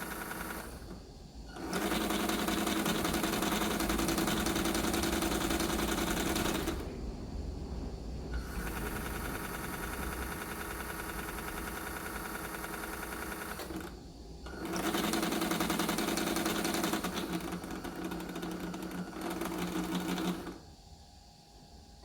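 Small electric motor with gearing, running with a steady whirring buzz in stretches of about five seconds, easing off between runs and stopping near the end.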